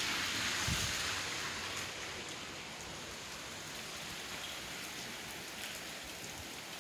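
Steady rain falling in still air, with no wind: the windless lull that the uploader takes for the eye of a typhoon. The hiss eases slightly about two seconds in, then holds steady.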